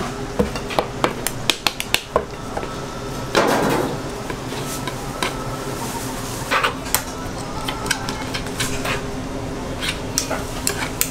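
Metal spatula blade scraping and tapping on a plastic cutting board as fish paste is spread and cut, with many irregular sharp clicks and a longer scrape about three and a half seconds in. A steady low hum runs underneath.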